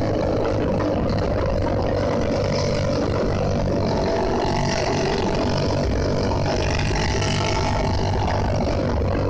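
Motorcycle running steadily at cruising speed, its engine note under a constant rush of wind on the camera microphone.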